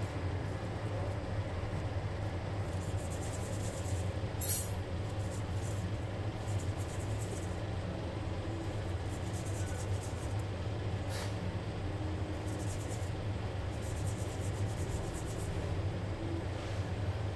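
A steady low hum with a faint hiss under it, broken by a short click about four and a half seconds in and another near eleven seconds.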